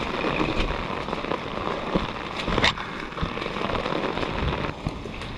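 Steady rain pattering, with a few sharp knocks or clicks, the loudest about two and a half seconds in.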